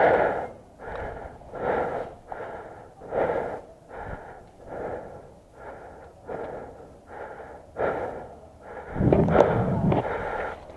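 A person breathing hard and wheezing close to the microphone, one panting breath about every three quarters of a second, with a louder rush of noise near the end.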